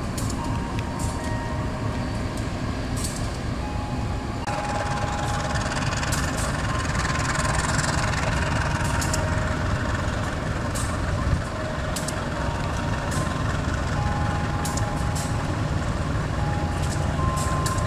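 Diesel-electric locomotives idling with a steady low rumble under the hiss of falling rain. Short faint tones come and go now and then.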